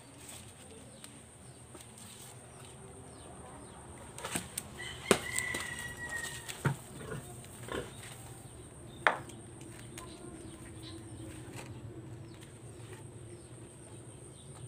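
A bamboo harvesting pole knocking and rustling among banana leaves, with a scattered run of sharp knocks and snaps in the middle, the loudest about five and nine seconds in, as a banana blossom is worked loose. A short high call sounds once among the knocks.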